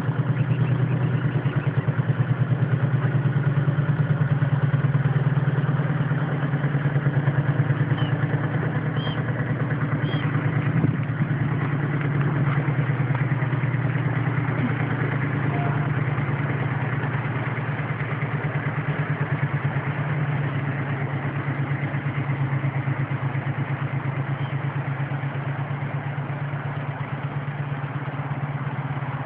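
An engine running steadily at idle: an even low drone with a fast pulse. A few faint high chirps come about eight to ten seconds in.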